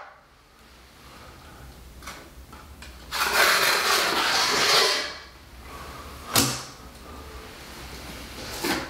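6-inch steel taping knife scraping wet Hydroban liquid waterproofing over fabric tape at the base of a shower wall, squeezing out the excess. One scraping stretch of about two seconds, with a few sharp clicks of the knife, the loudest about six seconds in.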